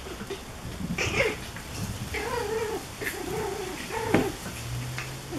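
Eight-week-old Pomeranian puppies giving short, high-pitched whines and yelps during rough play: about four separate calls, each bending up and down in pitch.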